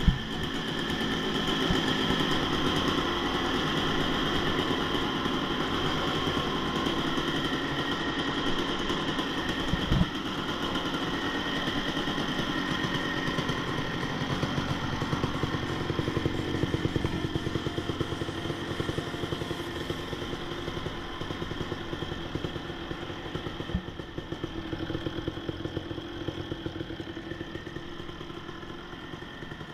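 1996 Kawasaki KX250's single-cylinder two-stroke engine running steadily after its rebuild, growing gradually fainter through the second half.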